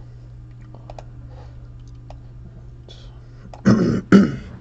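Faint scattered clicks of trading cards and packs being handled, then a person coughs twice, loudly, near the end.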